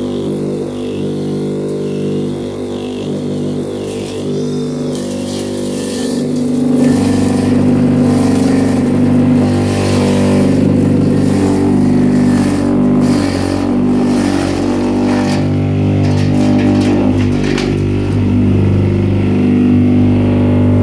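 Homemade forage chopper driven by a used Sanyo water-pump electric motor, running with a steady hum while its blades chop leafy greens. The chopping noise grows louder from about seven seconds in.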